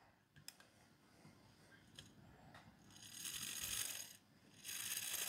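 Brass wheels of an unoiled antique Ansonia clock movement being turned and rocked by hand: a few faint clicks, then two short spells of light whirring rattle from the gear teeth, starting about three seconds in.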